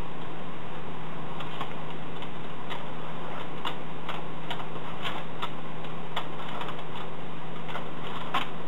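Light irregular clicking at roughly two clicks a second, starting about a second in, from the hand-turned wheel and chain drive of a mid-1960s Argo Junior Chef Cookie Factory toy, heard over a steady low hum.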